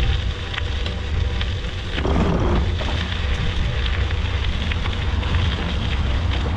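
Wind buffeting a bike-mounted camera's microphone, with the steady crackle of bicycle tyres rolling over a gravel trail.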